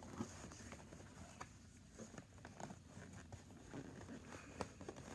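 Faint, scattered light clicks and rustles of a doll box and its packaging being handled.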